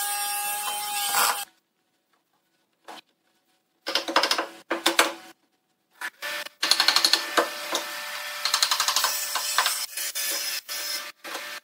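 A cordless screwdriver runs for about a second and a half, driving a screw into the wooden bench frame, then stops. After a short silence, wooden boards and slats knock and clatter in irregular bursts as they are handled and laid on the frame.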